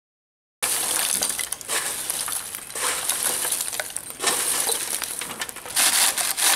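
Charcoal lumps crunching and clinking as they are broken up between the rotating steel blades and comb of a homemade hand-cranked charcoal grinder: a dense, crackling run of small brittle clicks, rising and falling in loudness and starting suddenly about half a second in.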